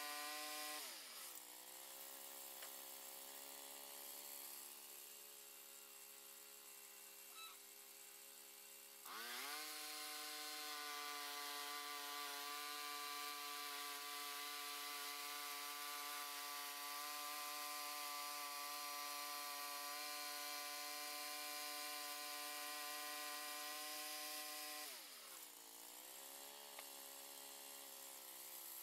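Bandsaw mill running as its band blade cuts through a hardwood burl log: a steady engine note over the hiss of the blade. The engine's pitch drops about a second in, rises again about nine seconds in, and drops once more near the end.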